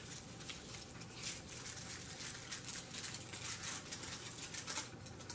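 Soft rustling and crinkling of a sheet of paper being unfolded and a crumpled piece of foil being handled, a run of faint crackles.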